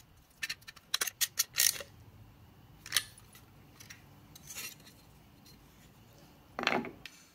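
Light metallic clinks and clicks of a small open-end wrench and an aluminium heatsink plate being handled on a workbench, a quick cluster about a second in, then a few single clicks and a louder knock near the end.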